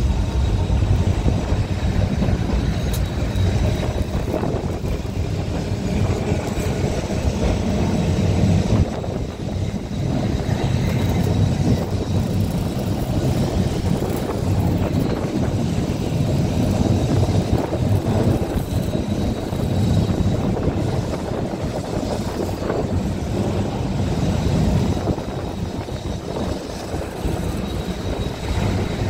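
Blackpool boat tram running at speed on the tramway, its rumble mixed with strong wind noise over the open car. The noise holds steady, with a brief drop about nine seconds in.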